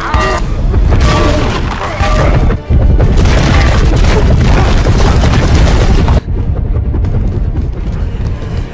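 Film fight-scene sound effects: heavy booms and crashes over a music score. The mix is loud and dense until about six seconds in, then drops suddenly to a quieter passage.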